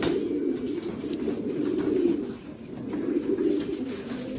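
Racing pigeons cooing, a continuous low murmur of several overlapping coos, with a few faint clicks.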